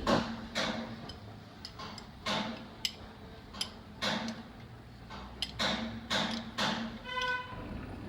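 Repeated short rasping strokes of polishing against a crankshaft turning in a lathe, with a low steady hum underneath and a few sharp clicks. A brief whistle-like tone sounds near the end.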